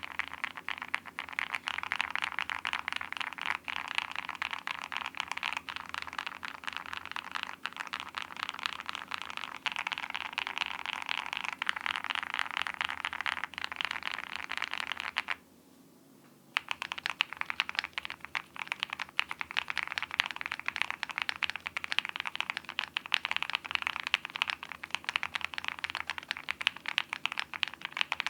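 Fast typing on a WindX R2 mechanical keyboard with KFA N2O switches, PBT keycaps, a polycarbonate plate and full foam: a dense stream of key clacks, broken by a pause of about a second halfway through.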